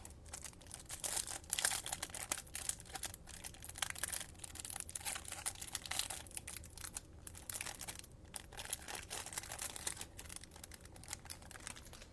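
Plastic wrapper of a trading-card pack crinkling and tearing as it is pulled open by hand, a dense run of crackles and rustles.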